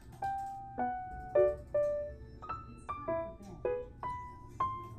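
Background music: a soft piano melody of single notes struck about twice a second, each ringing and fading, over a low steady backing.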